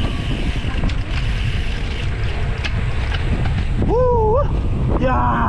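Wind buffeting an action camera's microphone on a moving road bicycle, a steady loud rumble. A short wavering pitched sound about four seconds in and a brief voice near the end.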